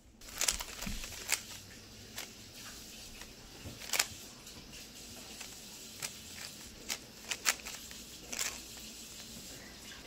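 Roxenda stickerless plastic 3x3 speed cube being turned by hand: irregular clicks and clacks of the layers turning, some in quick runs of several, one louder clack near the middle.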